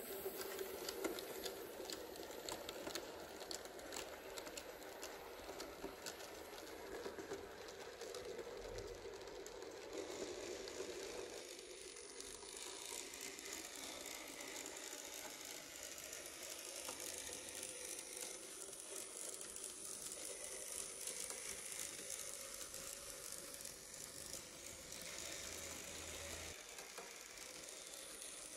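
Model railway locomotives running on the track: the whir of a small electric motor and gears, with fast clicking and rattling of the wheels over the rails. The whir is strongest in the first ten seconds or so.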